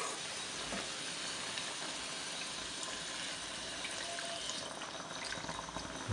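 Water pouring steadily from a steel tumbler into a large aluminium pot of chicken curry, splashing into the thick gravy. This is the water added so the country chicken can boil for half an hour.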